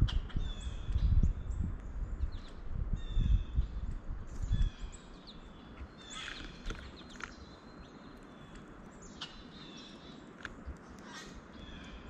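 Knocks and rustles of birds feeding on a mesh seed tray close to the microphone, busiest in the first five seconds. Short high chirps and whistles of songbirds come throughout.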